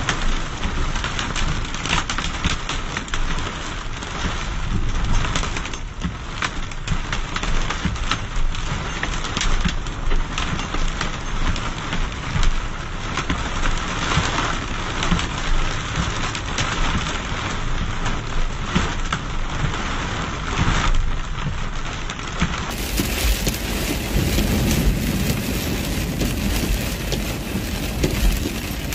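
Hard rain mixed with small hail drumming on a car's roof and windshield, heard from inside the car, a steady hiss peppered with many sharp ticks of stones striking. In the last several seconds the sound turns fuller, with a low rumble underneath.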